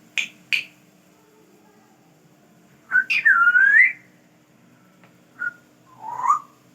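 Grey parrot making two sharp clicks, then, about three seconds in, a loud whistle about a second long that dips and then rises in pitch, followed by a brief chirp and a shorter rising call near the end.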